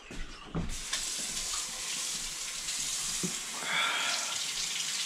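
Tap water running into a sink, switched on abruptly under a second in and running steadily.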